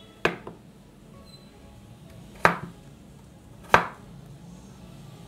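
Knife chopping on a cutting board: three sharp chops, spaced a second or two apart, each followed by a lighter knock.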